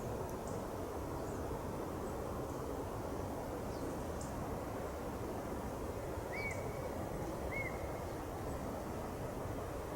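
Wild birds calling over a steady low rushing background: faint thin high notes scattered throughout, and two short arched whistled notes about a second apart after about six seconds.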